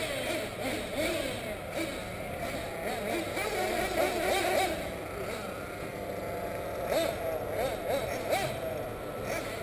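Several 1/8-scale nitro RC buggy engines whining, their pitch rising and falling as they rev up and back off around the track.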